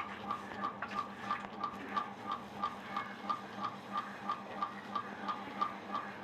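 Steady rhythmic ticking, about three ticks a second, over a low steady hum.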